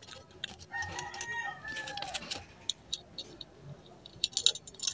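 A rooster crows once, starting about a second in and lasting well over a second. In the second half, small sharp clicks and taps come from the metal parts of a gas igniter valve as they are fitted together; these clicks are the loudest sounds near the end.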